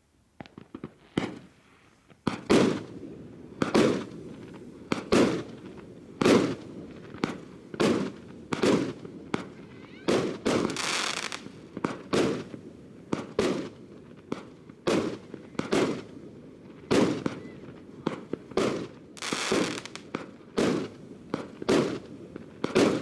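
A 49-shot firework cake, TKPM2649 'Grandioznoe Priklyuchenie', firing: after a few faint pops, sharp bangs come about once a second, shot after shot. Crackling bursts twice fill the gaps, about ten and nineteen seconds in.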